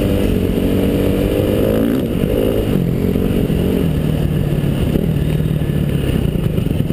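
Engine of a vehicle driving across snow-covered ice, heard close up. Its pitch rises and falls several times as the throttle changes, over a steady low rumble.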